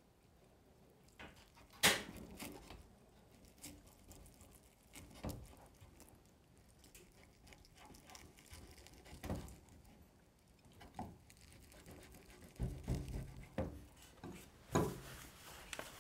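Kitchen knife working on a wooden cutting board while the skin is cut away from a sea bream fillet: sparse soft knocks and scrapes, the sharpest about two seconds in and a cluster of duller knocks near the end.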